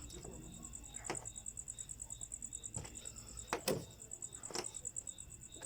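A steady, rapidly pulsing high chirping of insects, with a few faint clicks and knocks from parts being handled; the loudest knock comes a little past halfway.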